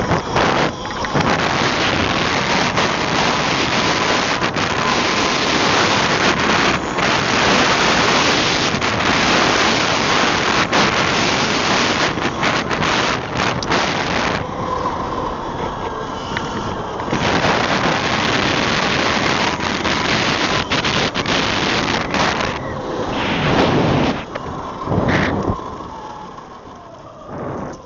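Heavy wind buffeting on the camera microphone while riding an Eride Pro SS electric motorbike. In two lulls the motor's faint whine comes through, and near the end it falls and rises in pitch as the bike slows and speeds up.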